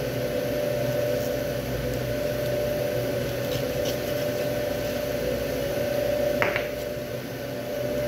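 Steady machine hum with a constant whining tone. A short, sharp sound comes about six and a half seconds in.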